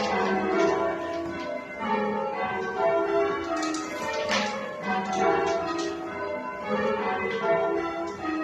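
Church bells rung full-circle in English change ringing: a tower of tuned bells struck one after another in quick succession, several strikes a second, their ringing tones overlapping.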